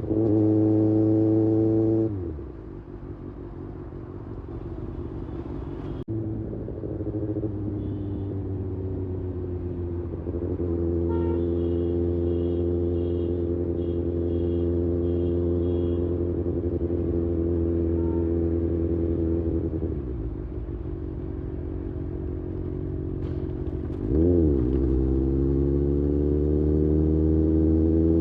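Kawasaki Ninja ZX-6R inline-four engine under way: it holds steady revs, falls away about two seconds in, climbs back and holds a steady cruise, drops again, then gives a quick throttle blip and pulls with revs rising near the end.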